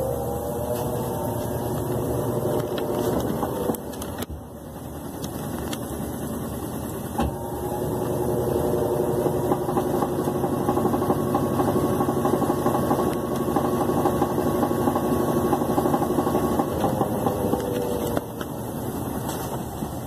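Brastemp BWL11 top-load washing machine spinning its basket: the motor's whine holds steady, dips about four seconds in, then climbs again and holds before easing off near the end. This is the spin that ends the wash stage, just before the rinse.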